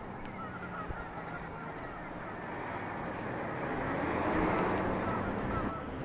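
A flock of gulls calling, many short overlapping calls, growing a little louder about four seconds in.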